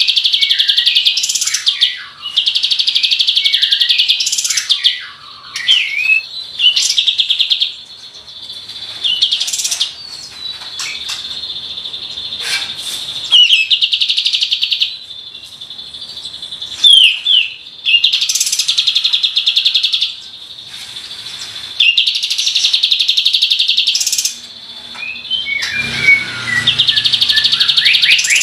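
Kapas tembak song: rapid, rattling high trills about a second long, repeated again and again and separated by short sliding chirps and whistles. These are the rolled 'tembakan' bursts prized in a singing bird.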